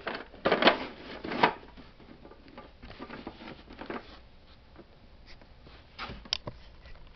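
Handling noise of a clear acrylic organizer being set down: a cluster of knocks and rustles in the first second and a half, faint ticks after, then a few sharper clicks about six seconds in.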